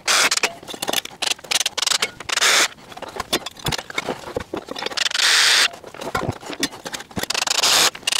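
Ryobi One+ cordless drill/driver driving Torx screws through a steel bench bracket into a wooden stretcher, in four short runs of half a second to a second each, with clicking and clattering of the bracket and screws being handled in between.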